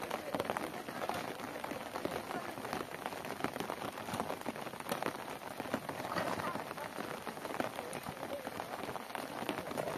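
Steady rain falling, with a dense patter of close raindrop hits throughout.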